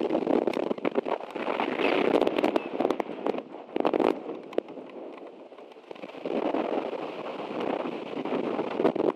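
Rain hitting the nest camera's microphone: crackly noise full of sharp ticks from the drops, easing off for a moment about five seconds in.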